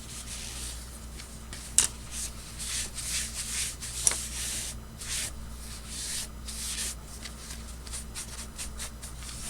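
Small brush scrubbing a wet camera circuit board in quick, irregular hissing strokes. Two sharp clicks come through, the loudest about two seconds in and another about four seconds in.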